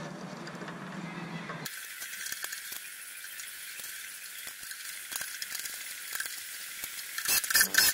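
Light metal clicks and rattles as a fuel pump and sender assembly is handled and pressed into its seat in a steel fuel tank. Near the end, a small electric screwdriver starts driving the flange screws with a loud, rapid clicking.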